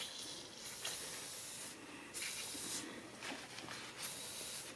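WD-40 aerosol can spraying onto a car door key cylinder to clean it after its tumblers were filed smooth, a hiss coming in several short bursts.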